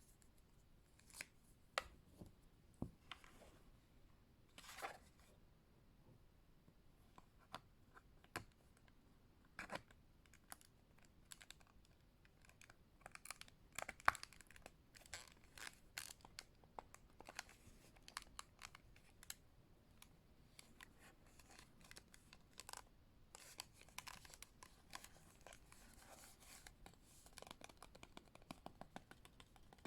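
Fingers handling a Western Digital My Passport external hard drive: soft scattered taps, clicks and scratchy rubbing on its plastic case, getting busier about halfway through.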